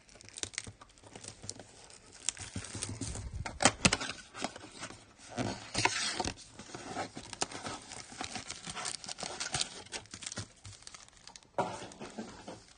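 Hands tearing open and crinkling the wrapping of a trading-card blaster box, with irregular rips and crackles throughout.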